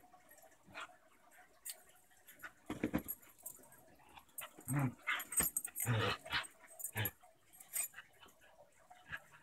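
Two dogs playing, a German shepherd puppy and an adult basenji–pit bull mix: a handful of short dog vocalisations in quick succession, mostly in the middle few seconds.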